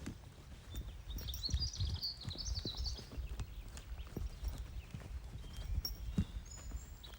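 Horse's hooves walking on soft ground: irregular dull thuds. A bird chirps for a couple of seconds about a second in.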